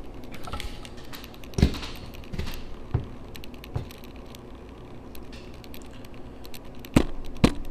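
Small metallic clicks as a chainmail ring with its wedge rivet is fiddled into place over a hole in a metal plate, then near the end two sharp light-hammer taps on the rivet, starting to drive it into the ring's overlapping ends.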